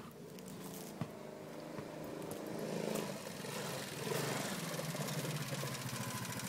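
Small 110cc ATV engine running as it is ridden, growing louder as it approaches, its pitch rising and falling with the throttle before steadying near the end.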